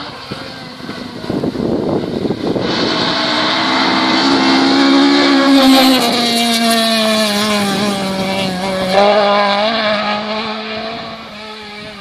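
Rally car engine at high revs approaching and going past: the note swells to a peak, then drops in pitch as the car passes. There is a sudden change in the note about nine seconds in, and then it fades as the car moves away.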